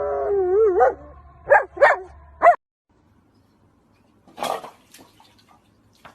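A dog howling with a wavering pitch for about a second, then three short, sharp barks. After a gap, one short, harsher noisy sound and a few faint clicks.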